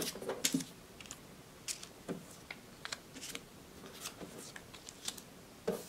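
Small paper cutouts being set down and slid on a sheet of paper on a tabletop: scattered light paper rustles and soft taps, about ten in all.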